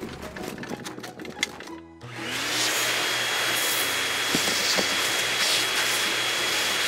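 Spray nozzle on a hose hissing steadily as it jets into a garbage truck's container to wash out the grime, with a thin steady whistle in the hiss. The spray starts abruptly about two seconds in.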